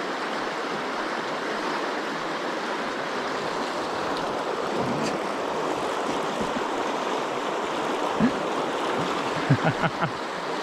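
River current flowing, a steady rush of water, with a few brief low sounds near the end.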